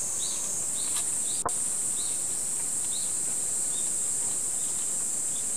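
Outdoor garden ambience: a steady, high-pitched insect drone with a bird's short rising chirps repeating, growing sparser toward the end. A single sharp click about one and a half seconds in.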